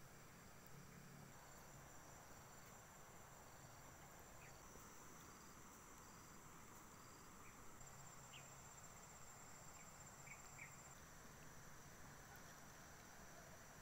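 Near silence with faint, steady high-pitched insect trilling from crickets or similar insects, and a few faint short chirps.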